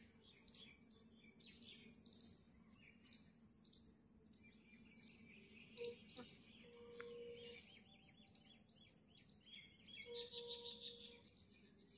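Faint outdoor ambience: many small bird chirps over a steady high insect hum. A faint held tone comes twice, about six and ten seconds in.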